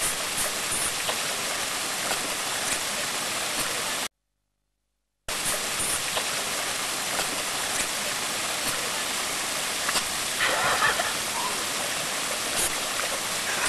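Steady rushing hiss of shallow sea water around the microphone. It drops out to complete silence for about a second, some four seconds in.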